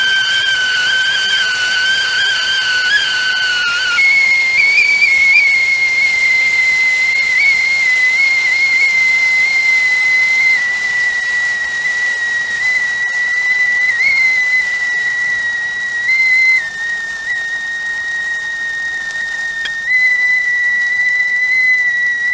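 Stovetop tea kettle whistling at the boil, steam forced through the spout whistle: a steady high whistle over a hiss of steam. About four seconds in the pitch jumps higher, then drifts slowly lower with small wavers.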